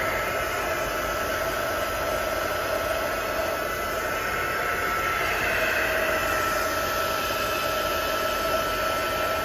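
Small handheld heat gun blowing hot air to dry wet acrylic paint on a canvas: a steady rush of air with a constant thin high whine from its motor.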